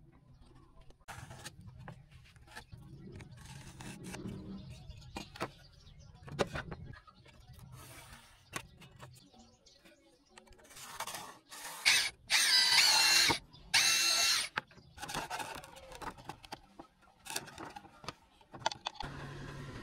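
Plywood and tools being handled, with scattered knocks and clatter, then a cordless drill running in three short bursts with a motor whine a little past halfway, drilling into a wooden strip laid on plywood.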